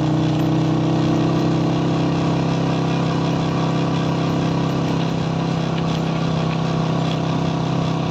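Motorcycle engine running at a steady pitch while the bike is ridden along the road, heard up close from the rider's seat.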